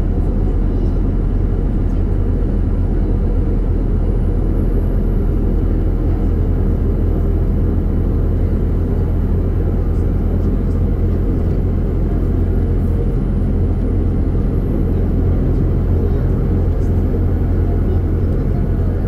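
Volgabus-4298.G4 city bus under way, heard from inside the cabin: its Weichai WP5NG200E51 compressed-natural-gas engine runs with a steady low drone, mixed with road and tyre noise.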